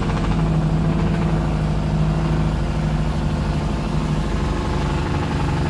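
Truck diesel engine running steadily under light load, heard from inside the cab at low road speed.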